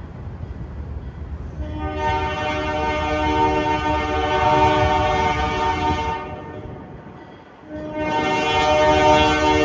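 ALCO C424 diesel locomotive blowing its multi-chime air horn: a long blast starting a second and a half in, a short break, then another blast starting near the end. A low locomotive rumble comes before the first blast.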